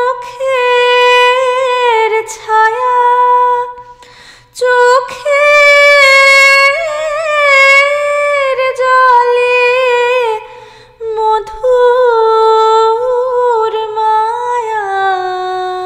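A woman singing solo in a high voice, drawing out long, wavering notes, with short breaks about four seconds and about ten seconds in.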